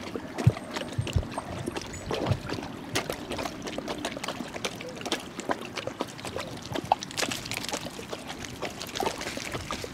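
Basset hounds wading through a shallow stream: water splashing and trickling around their legs, with many small irregular splashes.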